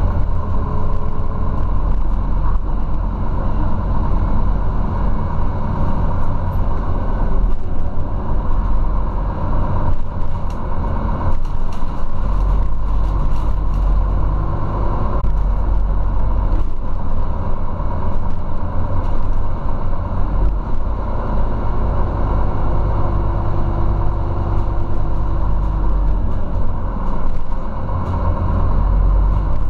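Scania CityWide Euro 6 city bus with a ZF automatic gearbox, heard from inside the passenger cabin while driving: a loud, steady low rumble of engine, drivetrain and road noise, with a faint whine that rises and falls in pitch partway through and scattered knocks and rattles.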